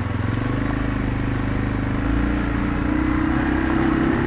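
Yamaha TW225E's single-cylinder four-stroke engine running while riding, its pitch changing about two seconds in and then rising slowly.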